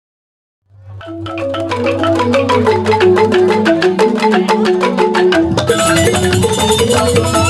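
Balinese gamelan playing a tabuh petegak: bronze metallophones strike a fast run of ringing notes over a held low tone, starting under a second in. About five and a half seconds in the full ensemble joins, fuller and brighter.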